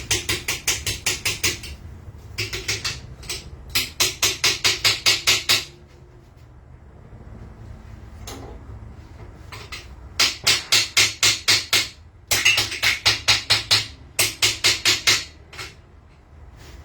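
Rapid hammer strikes on metal, about six a second, in five bursts of one to three seconds separated by short pauses.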